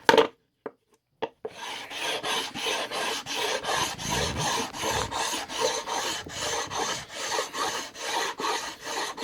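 Coarse sharpening stone scrubbed back and forth across a wooden cutting board like a sanding block, a rapid, even rasping that abrades the board's surface smooth. A short knock at the very start, then about a second of quiet before the strokes begin.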